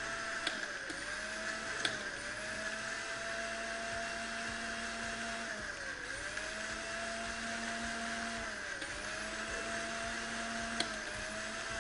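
Electric juicer-blender motor running, grinding green chutney of coriander, mint, green chillies and yogurt. Its pitch sags briefly every few seconds under the thick load and climbs back, with a few sharp clicks along the way.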